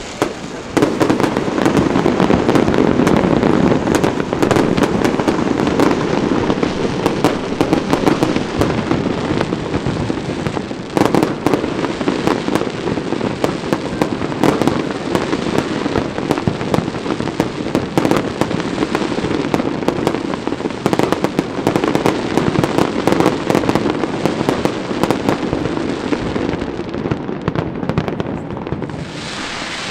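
A large fireworks display going off in a dense, continuous barrage of bangs and crackles. It rises sharply about a second in and keeps on almost without a break.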